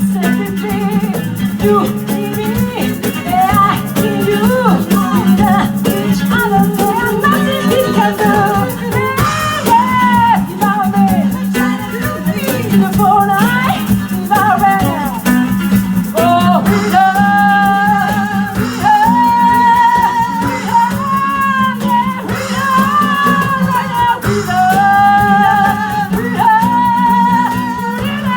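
A live band playing a soul number, with a shaker rattling throughout and a bending lead melody over a steady low note.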